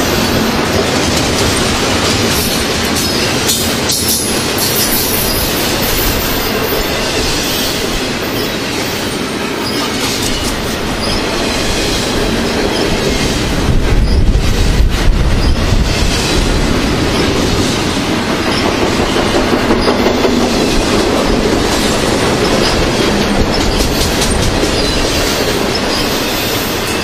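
Double-stack intermodal freight train's well cars rolling past close by, the wheels rumbling and clattering over the rail. It gets louder for a couple of seconds about halfway through.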